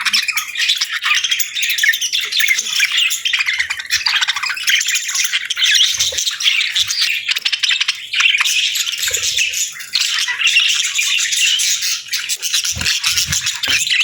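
A flock of budgerigars chirping and chattering without a break, many high calls overlapping.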